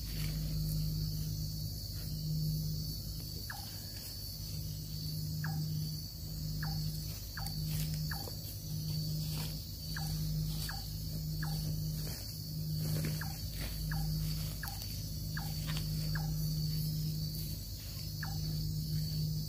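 Night insect chorus in rainforest: a steady high-pitched buzzing trill, under a loud low hum that pulses on and off about once a second, with short falling chirps from some animal every second or so.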